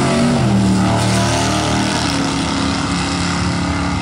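Two drag-racing cars' engines at wide-open throttle, running side by side down the strip in a steady, continuous engine note.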